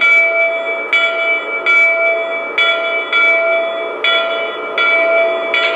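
A model electric locomotive's onboard sound system ringing its bell, a strike about every three-quarters of a second, each strike ringing on into the next.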